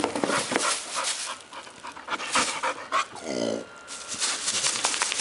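Bull terrier puppy panting amid rustling of a cardboard TV box, then one low burp lasting under a second about three seconds in.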